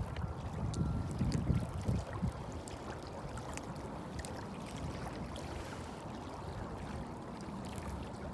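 Wind buffeting the microphone with low gusts for the first two seconds, then settling into a steady rush of wind and water around a fishing boat, with a few faint small clicks.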